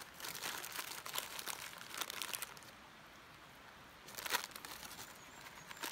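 A plastic food packet crinkling as it is handled, in a run of rustles over the first two and a half seconds, then a sharper, louder crinkle about four seconds in.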